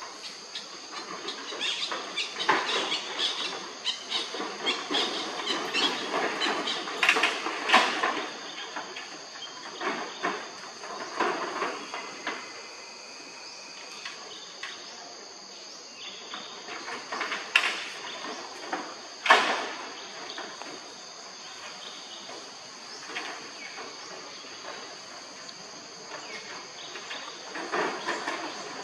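Steady high insect drone, with irregular scuffling and a few sharp knocks from monkeys moving on a corrugated metal roof, the loudest knocks about a quarter and two thirds of the way in.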